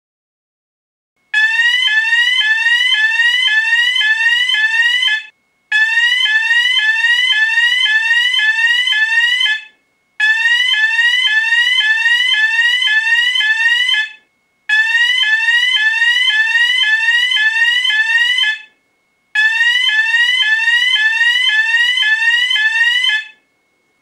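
Electronic fire alarm sounding in five bursts of about four seconds each, with short breaks between them. Each burst is a rapid run of rising chirps, about two a second. It starts about a second in.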